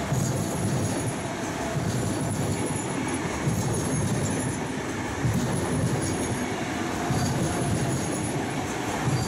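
VR Sm3 Pendolino electric train rolling past close by as it arrives, with low wheel thuds every second or two over the steady rolling noise and a faint high wheel squeal that comes and goes.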